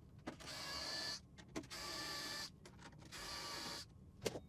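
Small electric screwdriver motor whirring in three short bursts, each under a second, as it backs screws out of a circuit board. Near the end there are a couple of sharp clicks.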